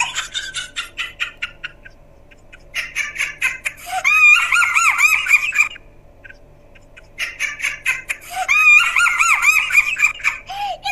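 Laughter in a very high-pitched voice, a rapid run of "ha-ha-ha" in three bouts with short breaks about two seconds and six seconds in.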